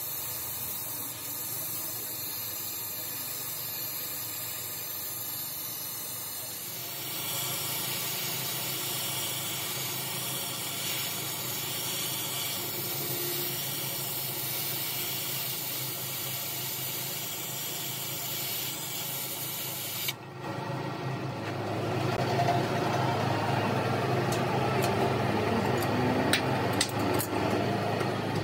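Gas torch flame hissing steadily as it heats a bent steel axle shaft, getting louder about seven seconds in. About twenty seconds in the hiss cuts off and a louder, lower steady machine noise takes over, with a few sharp clicks near the end.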